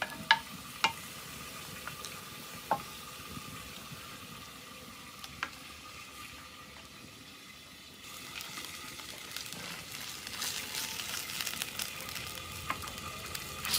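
Beef cecina and onion frying in hot oil in a pan, a steady sizzle with a few sharp clicks in the first half. From about eight seconds in the sizzle gets louder and crackles more.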